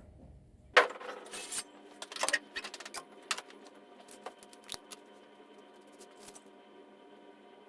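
Handling clicks and light plastic rattles while quart bottles of motor oil are opened and poured into the engine: one sharp click about a second in, then scattered lighter clicks that thin out, over a faint steady hum.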